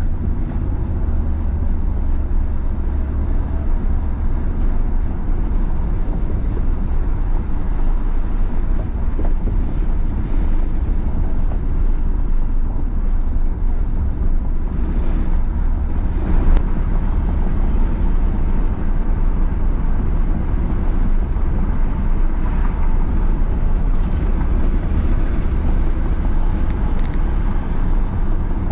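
Vehicle driving, with steady road rumble and wind noise on the microphone.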